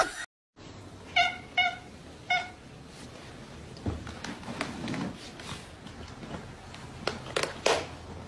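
House cat meowing: three short meows in quick succession about a second in.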